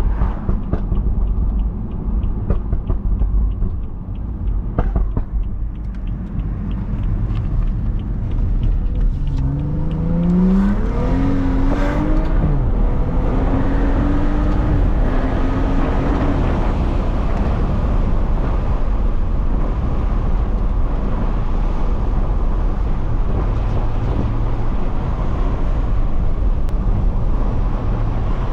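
BMW 335i's turbocharged inline-six, run without catalytic converters, accelerating under a steady road rumble: about nine seconds in the engine note climbs, drops at a gear change and climbs again, then settles into a steady cruising drone with tyre and road noise.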